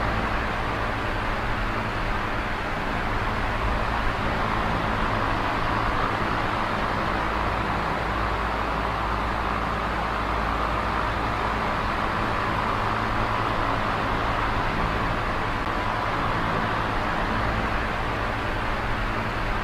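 Small oscillating electric fan running: a steady whir of moving air with a faint low motor hum.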